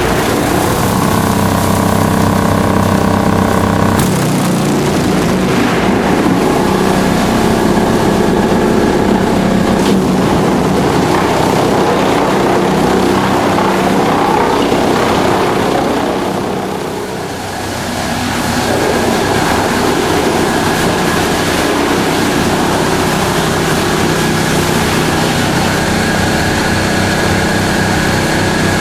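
ASILVA DFR4-1000 drum wood chipper running: a loud, steady machine drone with engine-like tones. The sound changes about four seconds in and drops off briefly past the middle before picking up again.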